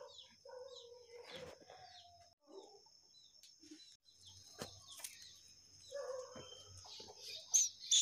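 Sogon bird nestlings cheeping in their nest: short, faint, high chirps. Under them runs a steady high-pitched drone, and there are rustles and knocks as the nest is handled. Two lower calls come through, one about half a second in and one about six seconds in.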